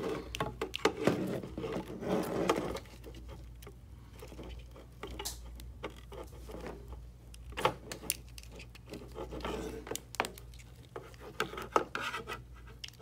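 Plastic ink tank and its tubes handled in gloved hands as the tubes are pulled off the tank's outlets: rubbing and scraping of plastic, busy for the first few seconds, then scattered light clicks and knocks.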